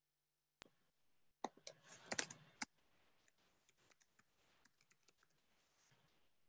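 A few faint clicks and taps over a video-call microphone, one near the start and a cluster about one and a half to two and a half seconds in, amid near silence.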